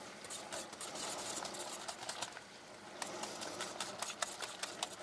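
Faint clicking and tapping of a wire whisk against a mixing bowl: a few light clicks at first, coming more often in the last two seconds.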